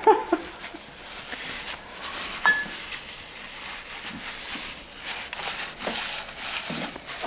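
A cloth rag rubbing and wiping oil off a torque converter's steel reactor shaft and the surrounding metal, in uneven strokes. A short metallic click rings briefly about two and a half seconds in.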